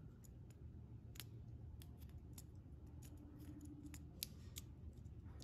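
Faint, irregular small clicks and ticks of plastic parts as a one-sixth scale toy rifle is handled in the fingers and its curved magazine is fitted back in.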